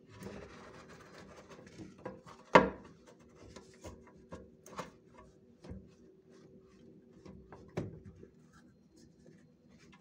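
A 45-degree drain elbow being pushed and worked onto the rubber-gasketed mouth of a drain pipe, its gasket slicked with liquid detergent: rubbing and scraping at first, a sharp knock about two and a half seconds in, then scattered smaller clicks and knocks.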